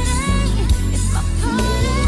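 Background pop/R&B song with a sung vocal line over heavy bass and a steady beat.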